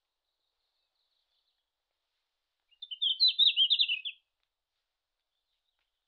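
Red-flanked bluetail singing a single short phrase of quick, high, jumbled notes, about one and a half seconds long, near the middle.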